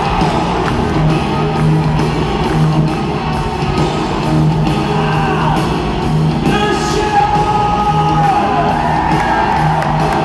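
Live hard rock band playing, with a singer's voice gliding and yelling over it, heard in a large indoor arena.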